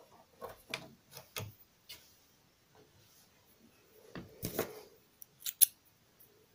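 Faint rustling of satin fabric and small clicks of hands working at the embroidery machine's needle while rethreading it, then two quick sharp snips of small spring thread snips about five and a half seconds in.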